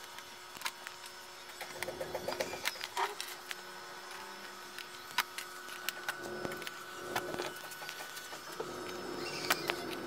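Scattered small clicks and snaps of plastic clips and metal frame parts as an LED TV's bezel is pried apart by hand. Pigeons coo faintly in the background.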